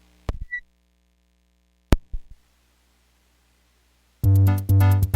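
Two sharp clicks, then about four seconds in a Suzuki Omnichord starts sounding: a deep bass and chord over a fast, even beat from its built-in rhythm, loud and clean.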